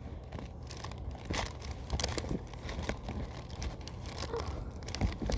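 Rustling, crinkling and light clicks of small objects being handled and moved about, as when searching through craft supplies.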